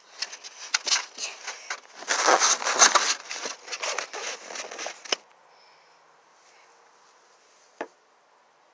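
Plastic egg carton being handled as an egg is taken out: crackling, rustling and many small clicks that stop after about five seconds. A single short knock near the end.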